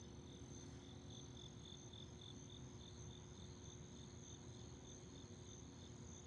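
Crickets chirping at night: a faint, steady high trill with a second insect's chirp pulsing about four times a second over it.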